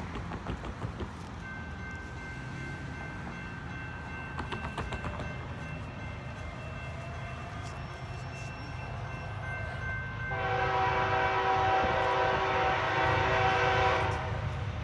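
Air horn of an approaching GE ES44AC-H diesel locomotive: faint steady horn tones from about a second and a half in, then a loud many-note horn chord held for nearly four seconds, over a low rumble.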